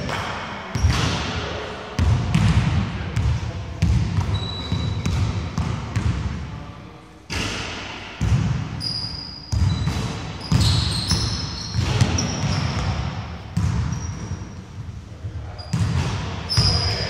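Basketball bouncing on a wooden gym floor, booming and echoing around a large hall, irregular dribbles every second or two. Short high squeaks of sneakers on the court come in between.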